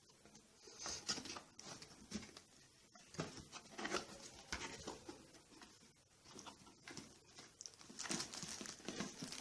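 Faint, irregular rustling, scraping and light knocks of a cardboard box and its packaging being opened by hand, becoming more continuous near the end.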